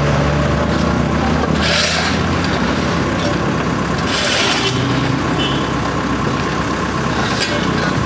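A truck engine running low and steady under general street noise, with short hissing scrapes about two and four seconds in and again near the end, from steel shovels scraping broken concrete rubble off the pavement.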